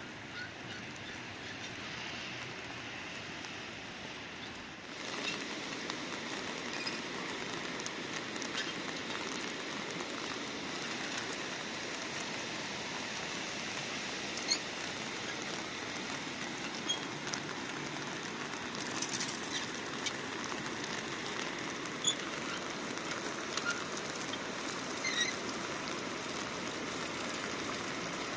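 Steady rain falling, with scattered small drips and taps over it; the rain gets a little louder about five seconds in.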